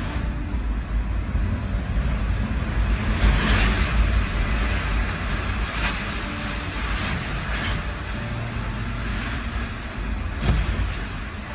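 Typhoon winds blowing in surging gusts, buffeting the microphone with a heavy low rumble, strongest about three to four seconds in. A single sharp knock near the end.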